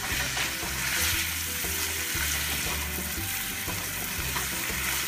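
Diced red onion sizzling in butter in a stainless steel skillet, stirred with a spatula.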